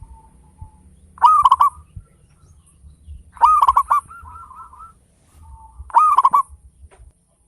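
Zebra dove (perkutut) cooing: three loud phrases of quick rising-and-falling coos about two seconds apart, the middle one trailing off into a softer wavering trill. A low hum lies underneath until near the end.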